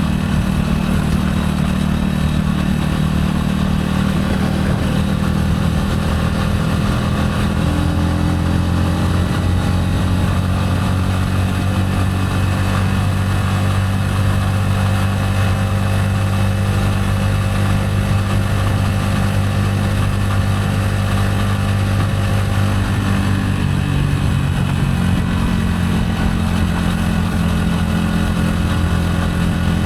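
Gilera AC4 motorcycle engine running steadily while riding, with the engine note shifting about eight seconds in and again near the end.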